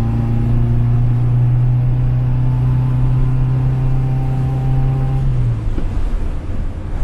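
Skoda car being driven, its engine holding a steady note at constant revs, with road rumble underneath. About five and a half seconds in the engine note drops away as the revs fall, leaving mostly low road rumble.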